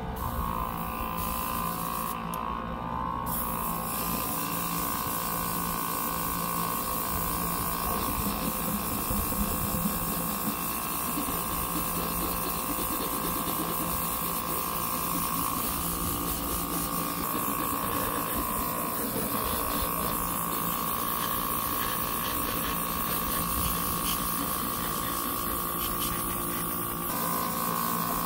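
Airbrush spraying paint: a steady hiss of air over the continuous buzzing hum of its small compressor motor.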